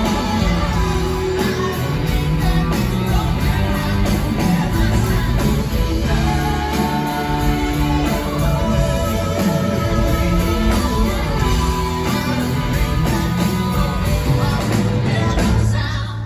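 Live rock band playing a song through a concert PA, with electric guitars, keyboard and drums under a lead singer's vocal, heard from within the audience.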